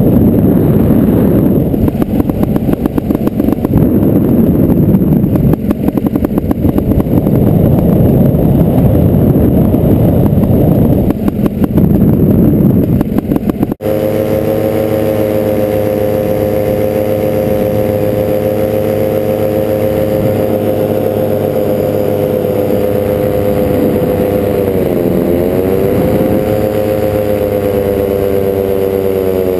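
Paramotor engine running in flight, buried under rough wind buffeting on the microphone for the first half. After an abrupt cut it becomes a steady engine drone whose pitch dips briefly and recovers twice in the later part.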